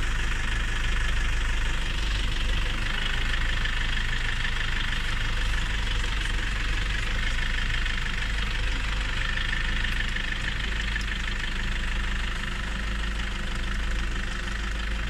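Safari jeep's engine idling steadily, with a steady high hiss over it.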